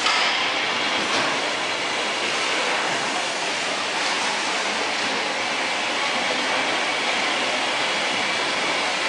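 Steady mechanical running noise of a packaging line: roller conveyors and carton-handling machines running, an even hum and hiss with no distinct strokes.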